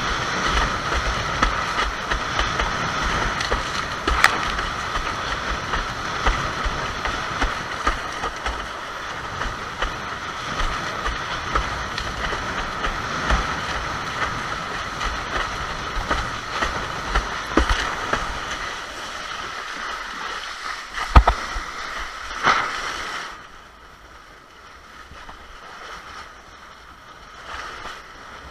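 Fanatic Bee windsurf board sailing fast through chop: steady rushing water and wind buffeting the action camera, broken by a few sharp slaps of the hull on chop, the loudest about three quarters of the way through. The rush drops much quieter for the last few seconds.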